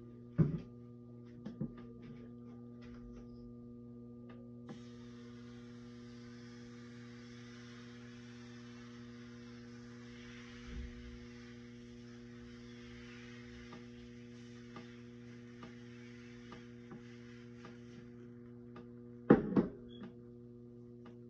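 Injera batter poured in a spiral onto a hot electric mitad, sizzling softly from about five seconds in until near the end, over a steady electrical hum. A couple of sharp knocks come at the start, and louder knocks come near the end.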